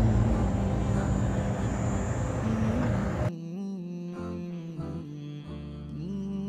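A minivan pulling up on open dirt ground, its engine and tyres rumbling under wind on the microphone. A little past halfway this cuts off abruptly to slow music with a bowed-string melody.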